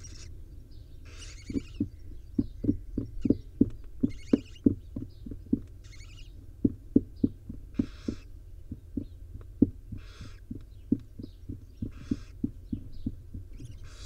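Barn owl nestlings hissing: short rasping hiss bursts about every second, the begging 'snoring' call of young barn owls. Under them comes a quick run of soft low thumps, a few a second, which starts a second or two in and stops near the end.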